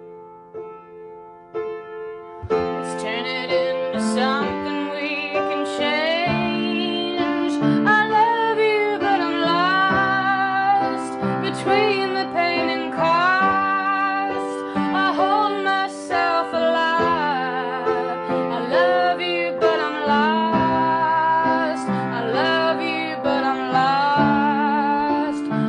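Upright piano playing slow held chords, softly at first. About two and a half seconds in, a woman's singing voice comes in, much louder and with vibrato, over the piano chords.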